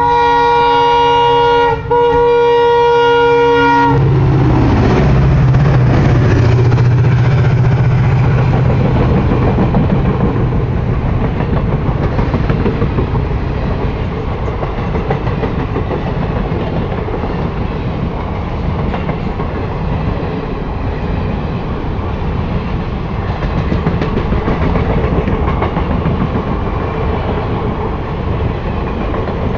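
An EMD WDP4D diesel locomotive sounds its multi-tone horn in two long blasts with a brief gap between them. It then passes with a low engine drone, followed by the coaches rolling by with steady wheel-on-rail noise and clickety-clack over the joints.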